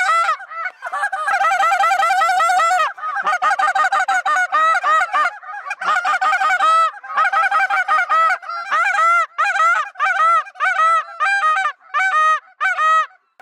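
A large flock of wild geese circling overhead and honking, many birds calling at once in a dense chorus that thins to separate, repeated calls near the end.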